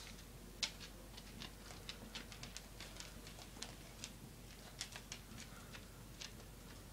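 A dog's claws clicking faintly and irregularly on a bare concrete floor as it walks about, a few sharp ticks a second.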